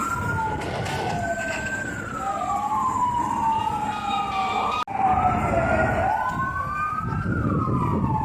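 Several emergency-vehicle sirens wailing at once, their slow rising and falling tones crossing over each other, over a rumble of traffic and street noise. The sound breaks off for an instant about five seconds in.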